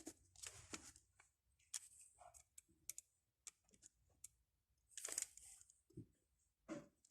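Faint scattered clicks and light taps with a few short scrapes, from a small precision screwdriver and tiny screws being handled against a mobile phone's plastic casing during reassembly; the longest scrape comes about five seconds in.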